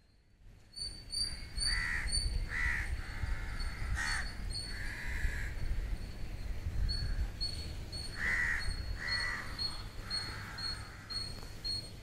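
Crows cawing about six times, mostly in pairs, over a run of very short high chirps that repeat about three times a second. A low rumble runs underneath.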